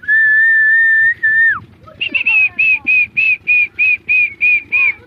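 Whistling: one long, steady note that ends in a falling glide, then a run of about ten short, evenly spaced higher notes, three or four a second.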